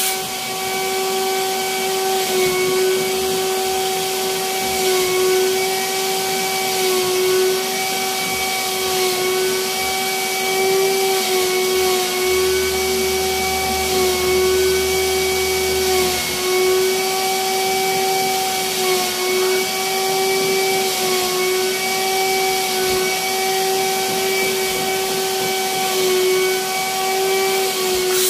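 Mattress-cleaning vacuum machine running steadily with a motor whine, air hissing through the hand nozzle as it is drawn over the mattress.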